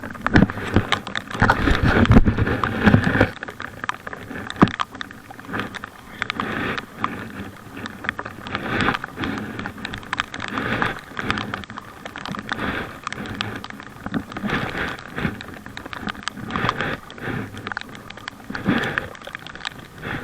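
Paddling a packraft: the paddle dips and splashes in the lake water in irregular strokes every second or two. A low rumble runs under the first three seconds.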